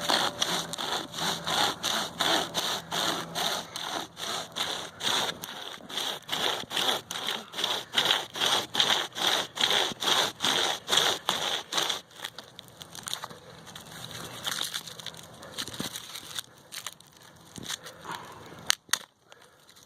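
UST SaberCut pocket chainsaw, a hand-pulled chain saw, cutting through a pine log in quick, even back-and-forth strokes of about two a second. The sawing stops about twelve seconds in, leaving faint handling sounds and a single knock near the end.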